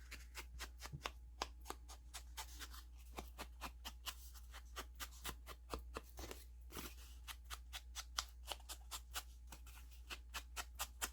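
An ink pad dabbed lightly along the edges of paper: faint, quick, irregular taps, about three or four a second.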